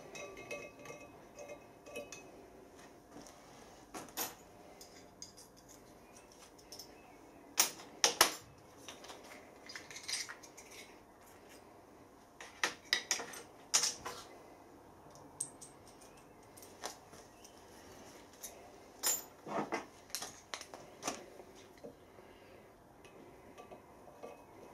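Scattered metallic clicks and clinks of hand tools, a tap and tap wrench, being handled and knocked against a cast-iron flywheel while a thread is tapped by hand. The loudest clinks come about eight, thirteen and nineteen seconds in.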